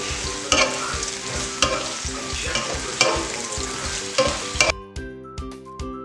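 Eggplant cubes sizzling as they fry in a nonstick wok, stirred with a plastic spatula that scrapes across the pan several times. The sizzle cuts off abruptly near the end, leaving background music with a steady beat.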